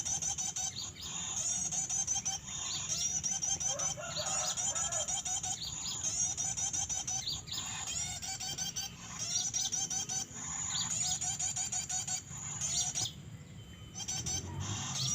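Small songbirds, called harmonika birds locally, chirping and trilling with quick high notes over and over, the calls overlapping densely with a short lull about two-thirds of the way through.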